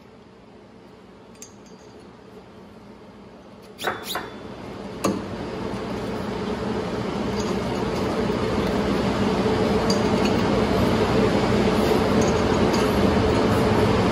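A few sharp metal clinks as new hub bushings are handled and fitted against the mower's track frame. Then a steady mechanical hum rises gradually and becomes the loudest sound.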